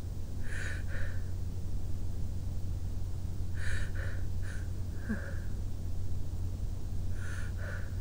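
A sick person sniffling through the nose: short, quick sniffs in groups of two or three, several times, over a steady low hum.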